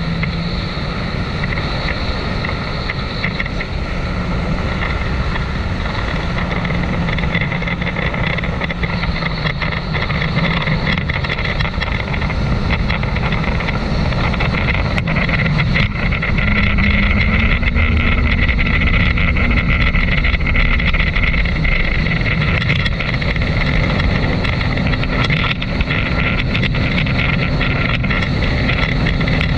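Jet ski (personal watercraft) engine running hard at high speed, with wind and the rush of water over it. The engine note steps up in pitch a little past halfway.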